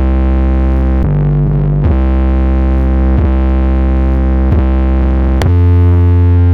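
Bass-heavy music played loud through a car audio system's woofers: long, deep held bass notes that change every second or so, the deepest and loudest near the end.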